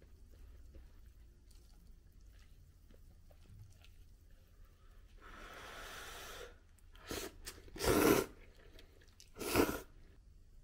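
A person eating and slurping instant noodles: quiet chewing at first, then a long slurp about five seconds in, followed by three short, louder slurps, the loudest two near the end.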